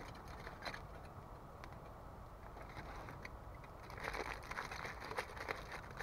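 Aluminium foil crinkling in the hands as a foil-wrapped food parcel is opened, a dense burst of crackles about four seconds in, over the scattered pops of a campfire.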